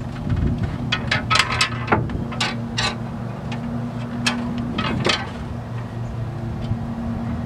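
Sharp metal clinks and knocks as a power steering gearbox is handled and set against a steel truck frame rail, a run of them over the first five seconds or so, over a steady low hum.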